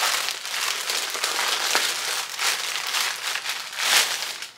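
Packaging crinkling and crackling as a small item is unwrapped by hand, with a louder crackle about four seconds in.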